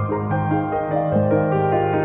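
Gentle background music on a keyboard instrument: a slow melody moving over held low notes.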